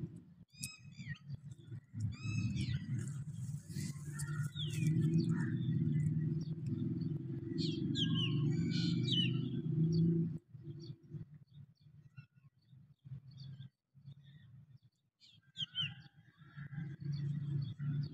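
Birds chirping and calling in short repeated notes, over a low steady rumble that drops away about ten seconds in and comes back near the end.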